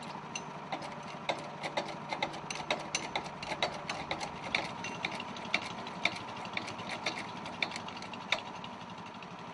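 A steady machine hum with many irregular light clicks and clanks over it; the lowest part of the hum drops away about halfway through.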